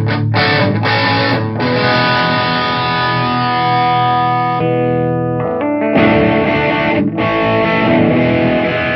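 Distorted electric guitar played through a solid-state amp head and 4x12 cabinet: a few short chopped chords, then a long ringing chord that fades, and after a short gap new chords that sustain.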